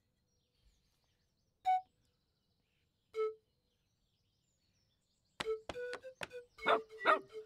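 Sparse background music: mostly quiet, with two single short notes in the first half, then a quick run of short, sharply struck pitched notes starting about two-thirds of the way through.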